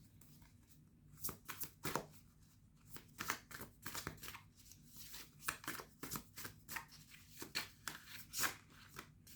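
Tarot cards being shuffled and handled: a run of short, irregular snaps and flicks of card stock starting about a second in.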